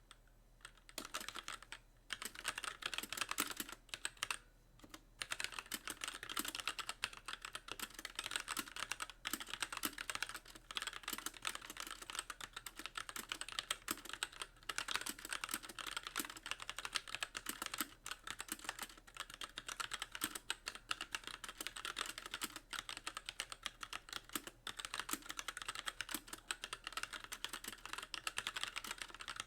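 Fast, continuous typing on a Magicforce mechanical keyboard with light Gateron Clear linear switches and stock keycaps, the keys bottoming out on nearly every press. The typing starts about a second in and pauses briefly around the fifth second.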